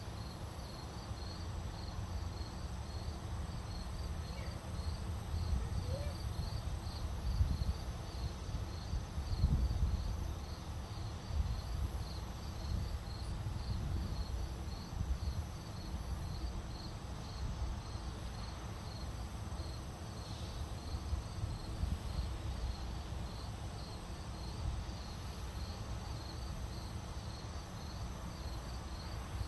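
Crickets chirping in a steady, even rhythm of short high chirps, over a low rumble that swells for a few seconds about a third of the way in.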